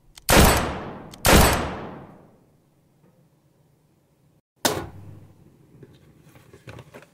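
Two gunshot sound effects about a second apart, each a loud bang that rings out and fades. After a sudden cut, a sharp knock about two-thirds of the way in as a cardboard-and-plastic toy box is set down on a table, followed by light rustling and tapping as the package is handled.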